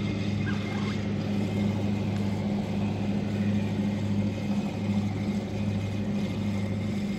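Boat engine idling, a steady low hum that does not change.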